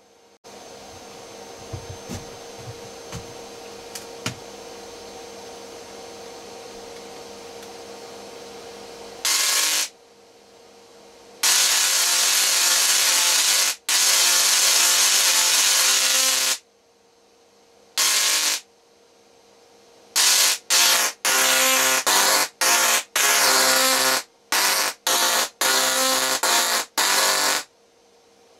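Small solid-state Tesla coil driven by a full bridge of 40N120 IGBTs, its spark discharges buzzing loudly. For about the first nine seconds there is only a low hum and a few faint clicks. Then the coil fires in long bursts of a few seconds each, and near the end in a rapid series of short bursts.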